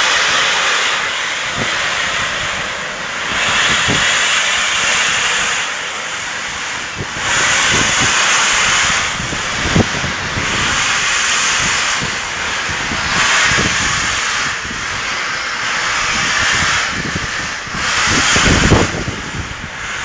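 Peppercorn A1 Pacific steam locomotive Tornado moving off slowly, its steam hissing in slow surges every second or two as the three-cylinder engine gets under way. Occasional short knocks come through the hiss.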